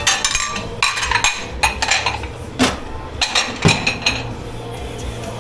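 Dishes and metal cutlery clattering and clinking as they are handled, a quick run of sharp knocks with a ringing tail over about four seconds, then stopping.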